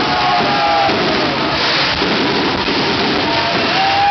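Music from a fireworks display's sound system mixed with a dense, steady wash of crowd noise and fireworks going off, with no single bang standing out.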